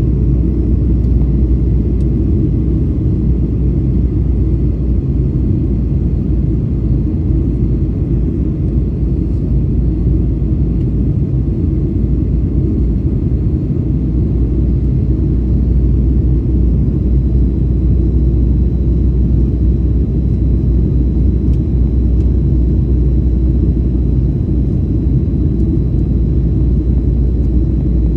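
Steady low drone of a Boeing 737's engines and airflow as heard inside the passenger cabin in flight, with a faint, thin, steady high whine over it.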